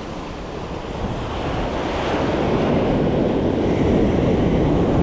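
Ocean surf washing on the beach, a steady rush that builds louder over the first few seconds, with wind buffeting the microphone.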